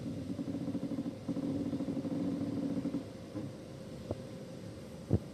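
2017 Citroën Berlingo's front strut top mounts groaning as the steering is turned, two long low creaks over the first three seconds over the engine's steady idle hum: the sign of rust in the strut mounts, which the owner cures with grease. A sharp knock near the end.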